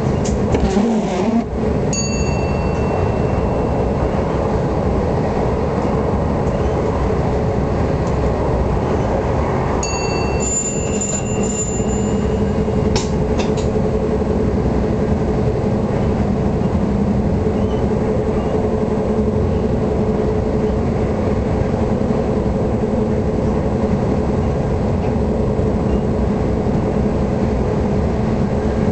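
Electric train running, heard from inside the driver's cab: a steady rumble of the wheels on the rails with a hum from the motors. Two high beeping tones, each about two seconds long, sound about two seconds in and again about ten seconds in. A few short clicks come near the start and about thirteen seconds in.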